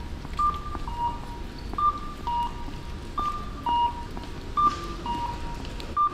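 Electronic two-note 'pin-pon' guide chime at a Japanese railway station entrance, a higher note falling to a lower one and repeating about every second and a half, over the low hum of a station concourse.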